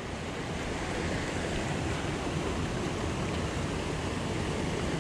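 Steady rush of flowing river water, an even hiss with no separate events.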